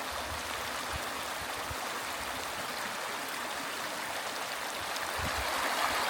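Mountain stream babbling and rushing steadily over rocks, growing a little louder near the end.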